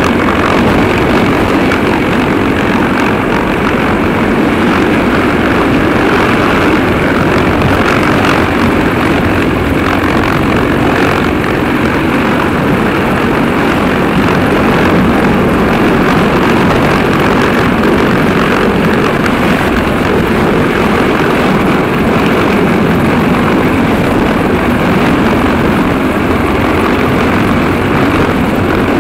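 CH-53E Super Stallion heavy-lift helicopter hovering directly overhead: a loud, steady roar of its three turboshaft engines and main rotor, heard from beneath the aircraft.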